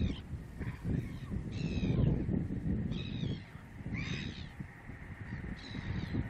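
Birds giving short, harsh cawing calls, about five at uneven intervals, over a steady low rumble.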